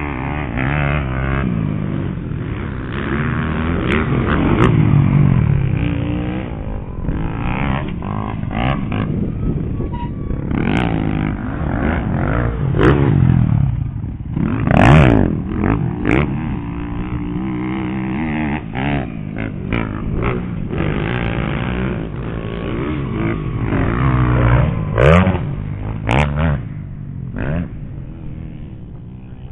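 Dirt bikes racing past on a motocross track, engines revving up and down as they ride by, loudest passes about five, fifteen and twenty-five seconds in.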